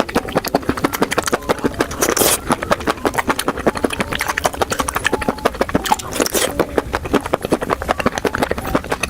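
Close-miked eating: chewing, with a dense, irregular run of wet mouth clicks.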